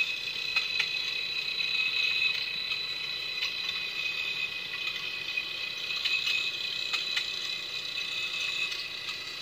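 Robot B9 model's sound-effects module playing the robot's electronic circuitry sound: steady high electronic tones with scattered irregular clicks.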